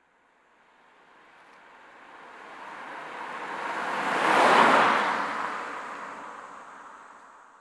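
A rushing whoosh swells slowly out of silence, peaks about four and a half seconds in, then fades away.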